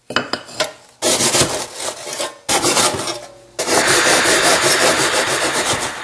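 Hand saw cutting through a soft insulating fire brick: quick, rasping back-and-forth strokes in several runs, the longest in the second half.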